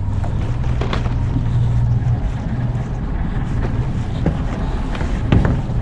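Fishing boat's engine running with a steady low hum that drops away about two seconds in, under wind buffeting the microphone; a few faint knocks.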